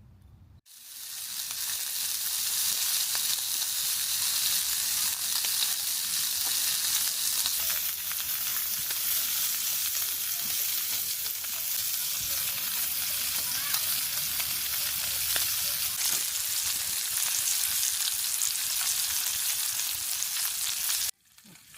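Pork (galmaegisal skirt meat and back ribs) sizzling as it grills, a dense steady hiss. It starts suddenly about half a second in and cuts off suddenly near the end.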